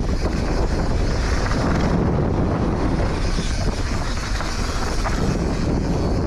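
Wind rushing over the microphone of a rider-worn camera during a mountain bike descent: a loud, even rumble with no break.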